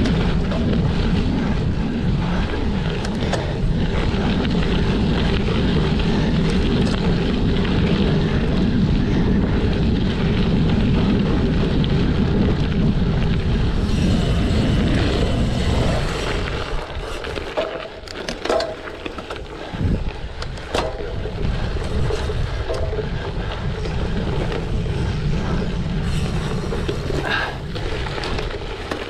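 Wind rushing over the microphone and tyre rumble from a cyclocross bike ridden at race speed over rough ground. About halfway through the rush drops off, leaving rattles and knocks from the bike over bumps.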